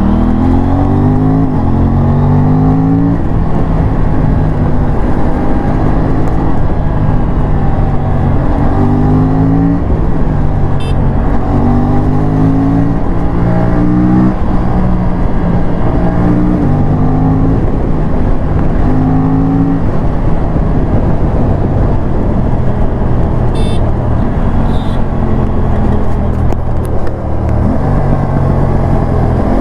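Aprilia sport bike's parallel-twin engine under hard acceleration, its pitch climbing through the revs and dropping at each upshift, over and over. A few sharp cracks from the exhaust come around the middle and near the end.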